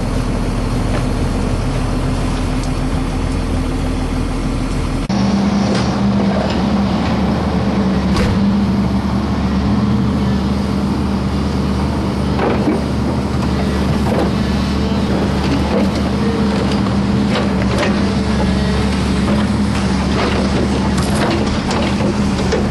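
A diesel engine running steadily, its tone changing abruptly about five seconds in, with scattered short knocks over it.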